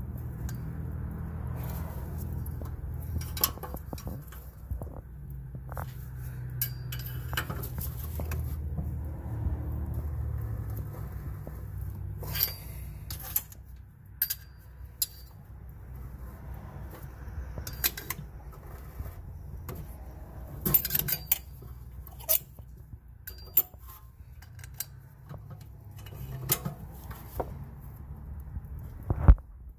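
Irregular metallic clicks and clinks from a threaded brake caliper piston compression tool being turned and worked against the rear brake caliper. A low steady hum sits under the first dozen seconds or so.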